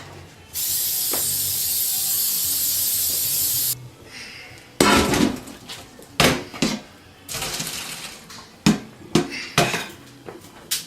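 Aerosol cooking spray hissing steadily for about three seconds as it coats a baking pan, followed by a series of sharp knocks and clatters of pots and pans.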